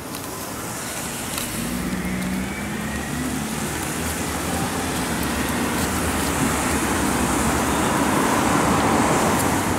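Road traffic passing on a wet street: a steady hiss of tyres on wet tarmac with engine noise. It grows louder toward the end as vehicles pass close by.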